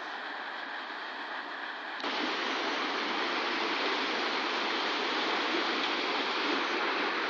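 Water rushing and splashing at a waterwheel: a steady noise that gets suddenly louder about two seconds in.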